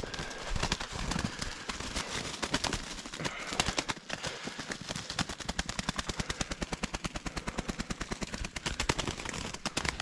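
Footsteps scuffing through dry leaf litter, then from about three and a half seconds in, a rapid, even patter of about eight beats a second that runs on: a slingshot-shot spruce grouse beating its wings against the leaves in its death flutter.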